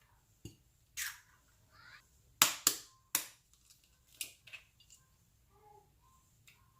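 Eggs being cracked and separated over a bowl: a string of sharp cracks and knocks of shell against the bowl, the loudest three close together about two and a half to three seconds in.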